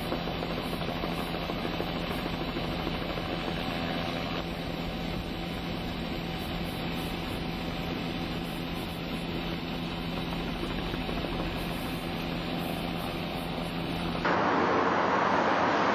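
A steady engine drone with a low hum. About fourteen seconds in it gives way to a louder, even rushing noise.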